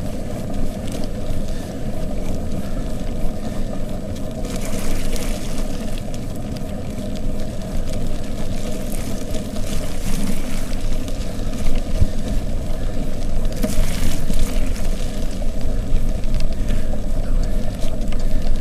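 Wind buffeting the microphone of a camera on a moving bicycle: a steady low rumble mixed with tyre noise on wet, slushy asphalt. Two louder hissing rushes come about five seconds in and again about fourteen seconds in.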